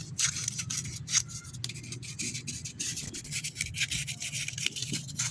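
Sandpaper rubbed back and forth over an electrical terminal in quick, uneven strokes, scouring off corrosion to restore contact on a vehicle that cranks and lights nothing.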